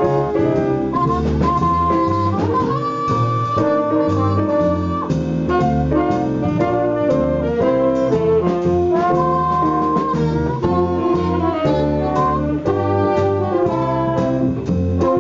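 Live small jazz band playing an instrumental chorus with no vocals: a lead melody line of held and sliding notes, likely a horn or saxophone, over walking bass, drums and chords.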